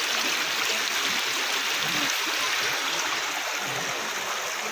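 Water rushing steadily through an open concrete storm drain (nala).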